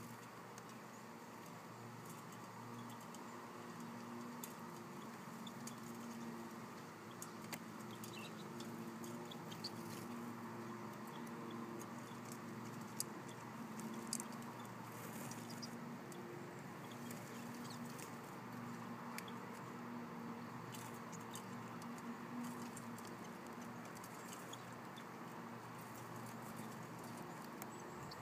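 Small finches feeding at a wire-caged tube feeder: many scattered light clicks and taps of beaks and claws on the metal cage and seed, with a few faint high chirps and a steady low hum underneath.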